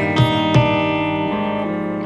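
A live rock band playing. Clean electric guitars ring out in picked notes over drums, with two sharp drum hits in the first second.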